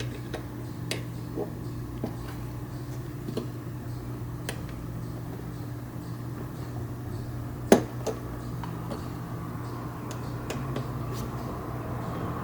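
Scattered small clicks and knocks of hand tools and loose bolts and parts being handled while a motorcycle's seat and tail parts come off, with one sharper knock a little past the middle. A steady low hum underlies it.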